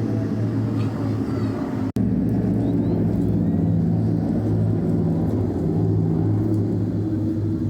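Yamaha XV650 chopper's air-cooled V-twin engine running steadily under way, with a brief break in the sound about two seconds in.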